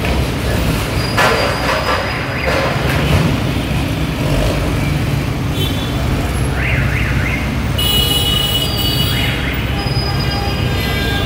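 Backhoe loader's diesel engine running steadily under load, with a few knocks early on and high squealing tones about eight seconds in.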